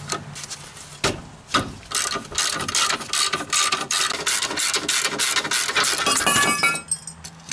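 Hand ratchet wrench clicking rapidly as a loose caliper bracket bolt is spun out, with a brief metallic ring near the end.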